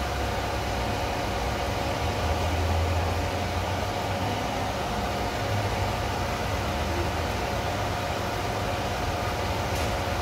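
Steady hum and hiss of an automatic ramen cooker heating a paper bowl of instant ramen, with a low drone and a couple of steady tones underneath.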